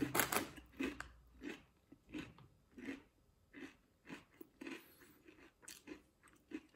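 A person chewing a mouthful of ridged potato chips, crunching in a steady rhythm of a little over one chew a second, loudest in the first second and fainter after.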